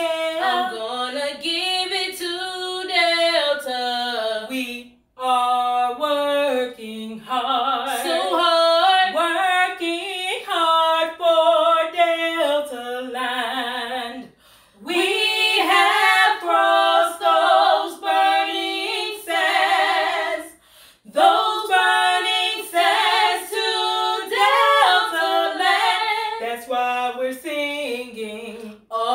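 Women's voices singing a cappella, with no instruments, broken by three short pauses between phrases.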